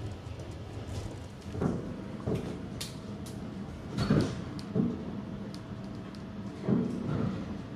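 Sliding doors or gates at a suspension railway station being worked: three pairs of short knocks and rattles over a steady low hum.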